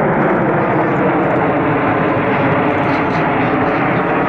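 BAC Strikemaster jet trainer's Rolls-Royce Viper turbojet running in flight, a loud, steady rush of jet noise.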